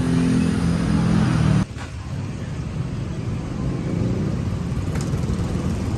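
Vehicle engine running with a steady low drone that stops abruptly about one and a half seconds in, giving way to a steady rumble of road traffic.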